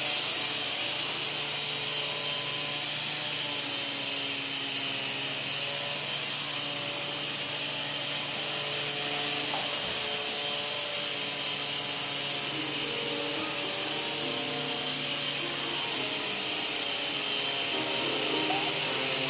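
RC helicopter in flight: its motor and rotors make a steady whine, the pitch shifting a little as it manoeuvres.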